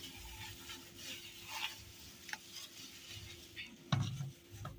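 Faint kitchen handling sounds of brown sugar being spread and rubbed onto raw pork ribs, with a few light clicks and a soft thump about four seconds in, over a faint steady hum.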